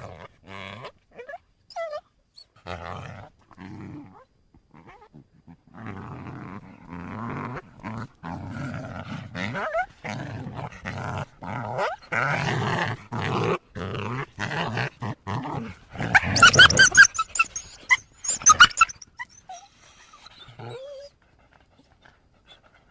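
Coyotes calling as a group: a run of short calls that builds up, peaks in loud, high-pitched calls about two-thirds of the way through, then dies away.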